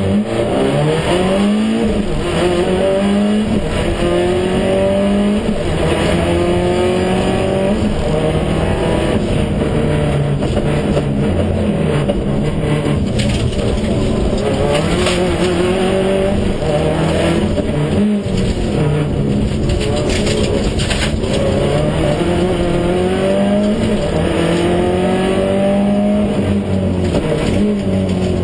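Subaru Impreza STI rally car's turbocharged flat-four engine heard from inside the cabin, accelerating hard through the gears: its pitch rises again and again and drops at each gear change.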